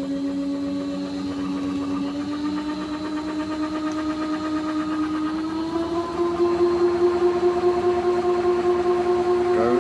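Home-built rig of a converted LG washing-machine direct-drive motor belt-driving a direct-drive rotor used as a permanent-magnet generator, running with a steady electric whine. The pitch creeps up as the rig speeds up, with a small step up about six seconds in.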